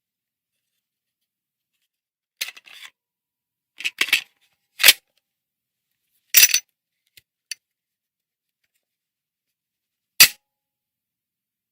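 Gun sound effects: short, sharp cracks, some single and some in quick clusters of two to four, separated by silence.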